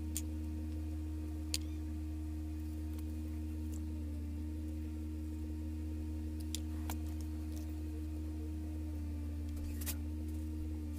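A steady low hum with two faint steady tones above it, with a few light clicks and taps from hands handling cardboard and a plastic glue bottle.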